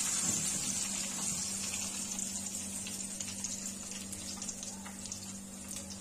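Hot oil sizzling in a wok as battered chicken wings are lifted out on a wire skimmer, a steady hiss with scattered small crackles that slowly dies down. A steady low hum runs underneath.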